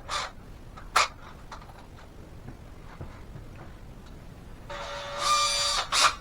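Two sharp clicks, then near the end a small motor whines steadily for about a second and stops, followed by another click.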